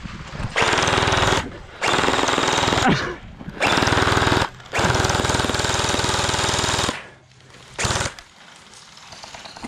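Electric gel blaster firing full-auto, a rapid mechanical rattle in bursts: four bursts of one to two seconds, the longest about two seconds, then a short one near the end.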